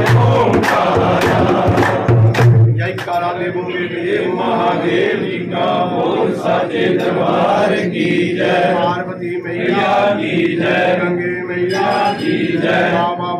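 Group of male worshippers chanting a Hindu aarti in unison, accompanied at first by a dholak drum and hand claps. The drum and clapping stop about three seconds in and the chanting carries on alone.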